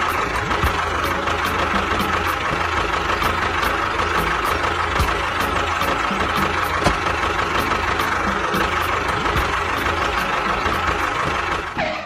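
Diesel tractor engine running steadily at idle, with a regular knock about three times a second; it cuts off suddenly at the end.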